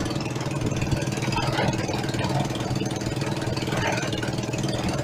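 Motorcycle engine of a Philippine tricycle (motorcycle with sidecar) running steadily while under way, heard from inside the sidecar.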